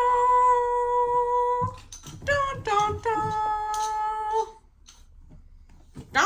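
A woman singing without words: long held notes, broken by a couple of short ones, then a pause.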